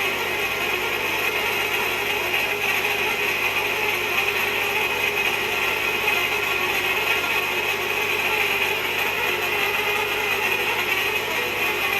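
Manual hot-tapping machine being cranked by ratchet handle, a steady, unbroken ratcheting as its cutter bores into a pipe.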